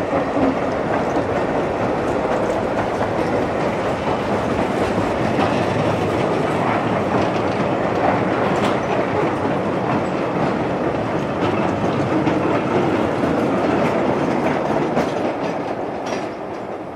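A gravity train of narrow-gauge slate wagons rolling past close by, coasting without a locomotive, its wheels clattering steadily over the rail joints. The sound drops away near the end.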